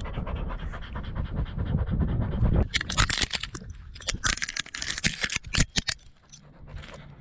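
Leaves and twigs rustling and scraping against a GoPro on a Brittany spaniel's chest harness as the dog noses through low brush. There is a low rumble at first, then from about a third of the way in a run of sharp, scratchy crackles that dies down near the end.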